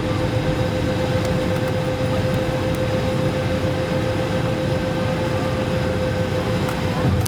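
Airbus A220-300 cabin noise: a steady low rumble from the Pratt & Whitney PW1500G engines, with one steady hum held above it. A light knock near the end.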